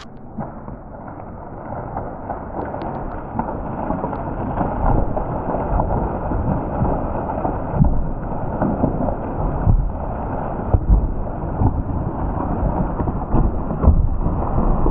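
A large tree of heaven falling after felling: the hinge wood cracks as the trunk tips over, and the trunk and crown crash to the ground in the last few seconds, over a steady low rumble.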